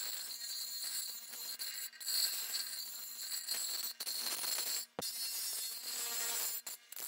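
Ryobi bench grinder's fine-grit wheel grinding the edge of an aluminum boat propeller: a steady high hiss over the motor's faint hum. The hiss breaks off briefly several times, with a click about five seconds in.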